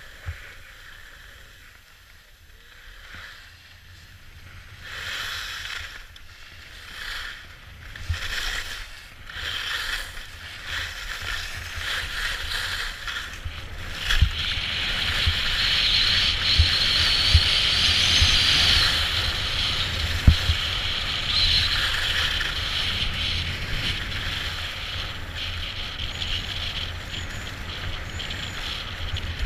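Hiss and scrape of sliding down a groomed snow slope, first in separate swishes for each turn, then a steady, louder rush as speed builds, over wind rumble and occasional thumps on the camera's microphone.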